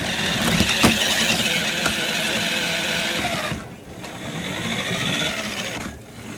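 Toy remote-control car's electric motor and gears running as it drives across the floor, heard from a device riding on the car. The sound cuts out briefly twice: about three and a half seconds in and near the end.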